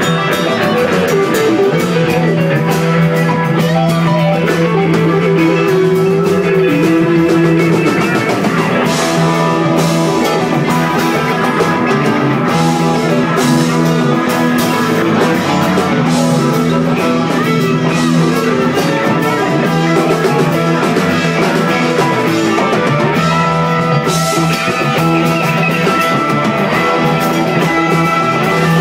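Live rock band playing an instrumental jam: electric guitars and keyboard over a steady bass and drum kit.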